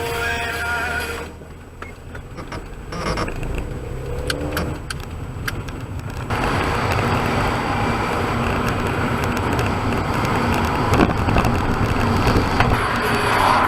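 Car driving noise: engine rumble and tyre and road noise, quieter for a few seconds with scattered light clicks, then a sudden step up to steady, louder road noise from about six seconds in.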